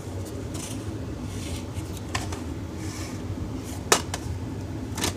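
A VHS tape case handled and turned over in the hand: soft rubbing and scraping of the case, with a sharp click about four seconds in.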